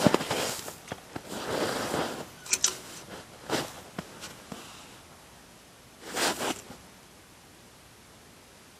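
Irregular rustling and crunching bursts with a few sharp clicks, typical of someone moving about in winter clothing on snow and ice.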